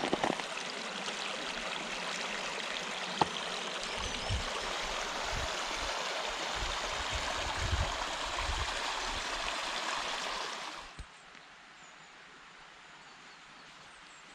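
A small river rushing and splashing over stones, a steady, even flow with a few low bumps underneath. It cuts off suddenly about eleven seconds in, leaving only a faint hiss.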